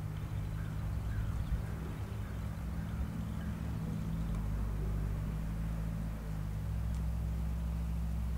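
An engine idling with a low steady hum that grows fuller about halfway through. A few faint short bird calls sound above it.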